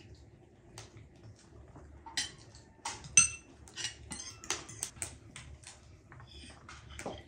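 Cutlery clinking and scraping on plates during a meal: a run of short, irregular clinks, the loudest and most ringing one about three seconds in.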